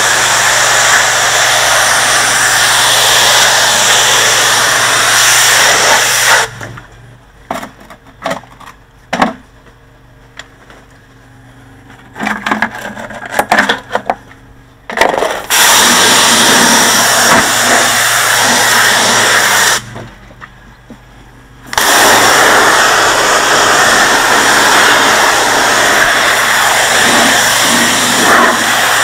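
Pressure washer jet blasting water onto porcelain patio slabs as a loud, steady hiss, cut off twice when the trigger is released: a long pause with scattered clicks and knocks, and later a short one. A low, steady hum of the pressure washer's motor runs underneath.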